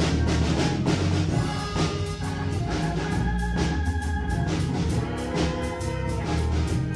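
Instrumental gospel music from a church band: a drum kit with regular cymbal strikes over held keyboard chords and a deep bass line.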